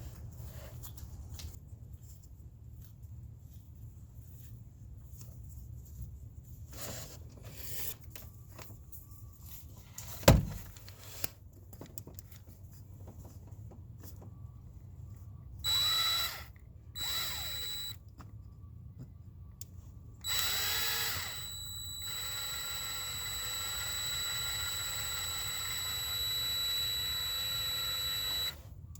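Power drill running in two short bursts, then steadily for about eight seconds, at work on stripped manifold bolt holes in an engine block during a Helicoil thread repair. A single sharp knock, the loudest sound, comes about a third of the way in, amid light tool clicks.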